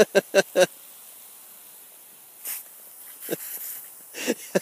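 A dog biting and snuffling at the water jet of a pop-up lawn sprinkler: a quick run of wet chomps, about five a second, that stops under a second in, leaving the steady hiss of the spray; a few more short snuffs come near the end.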